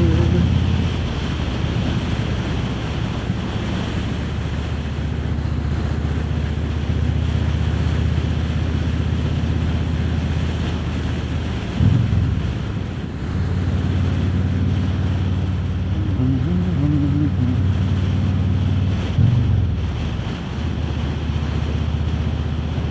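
Harley-Davidson Road King Special's V-twin engine running under way, with wind rushing over the microphone. The engine note breaks and changes twice, about halfway through and again near the end.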